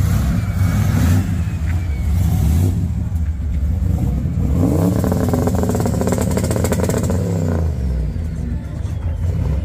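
Holden Commodore sedan's engine revved as the car pulls away, its pitch rising and falling several times over a few seconds about halfway through over a steady, low exhaust note.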